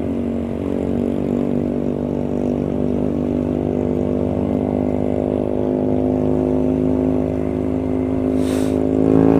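Motorcycle engine running at steady revs, one even note that holds its pitch, with wind and road rush on a helmet-mounted microphone; it grows a little louder near the end.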